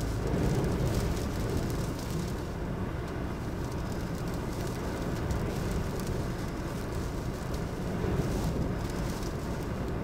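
Car driving on a road in storm-force wind: a steady rumble of engine and tyres, with wind gusting against the car. The gusts are strongest about half a second in and again near the end.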